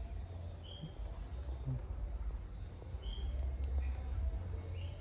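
Crickets chirping in a steady, pulsing trill, with a few short higher chirps and a low rumble underneath.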